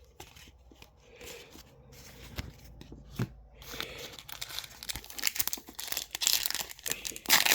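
Trading-card pack wrapper crinkling and being torn open. It starts at about four seconds in after a few faint clicks, and the crackling grows louder toward the end.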